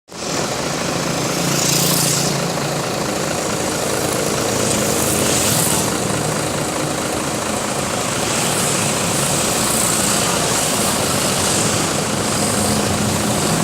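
Large vehicle engines running steadily, with two brief hisses about 2 and 5 seconds in. No clear musical horn melody stands out.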